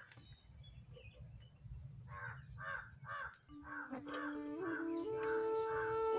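A crow cawing over and over, about three short caws a second, starting about two seconds in. Soft music with long held notes comes in about halfway and grows louder under the caws.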